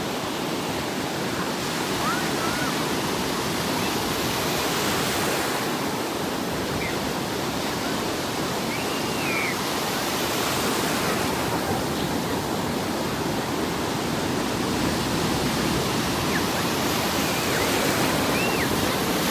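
Ocean surf breaking and washing through the shallows, a steady rush of foaming water that swells a little near the end as a wave breaks.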